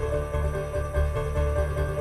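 Background music with a pulsing bass line under held notes.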